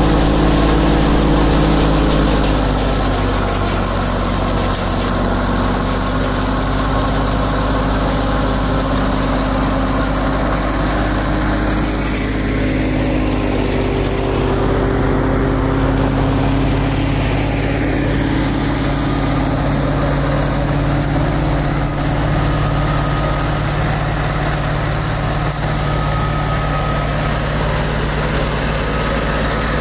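Fiat 640 tractor's four-cylinder diesel engine running steadily, its pitch dipping slightly a few seconds in and wavering a little midway.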